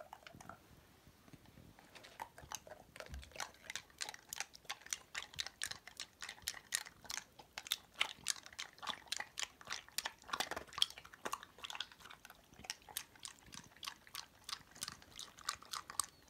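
A Border Collie crunching and chewing ice cubes: a long run of quick, irregular sharp crunches starting about a second in.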